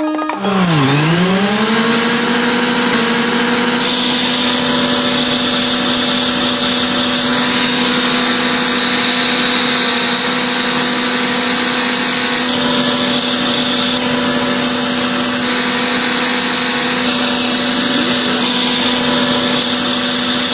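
Small motor of a miniature construction vehicle starting up: its pitch dips, then climbs and settles into a steady hum with a whine, and a higher hiss that comes and goes every few seconds.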